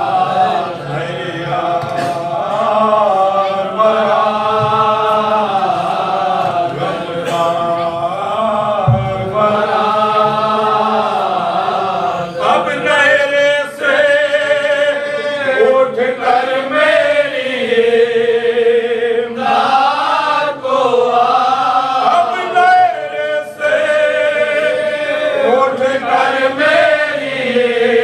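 A group of men chanting a marsiya, a Shia mourning elegy, together in one melody with gliding, drawn-out notes and no instruments.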